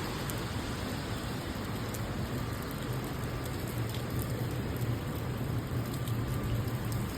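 Steady rain falling, with scattered faint drop ticks over a low, steady hum.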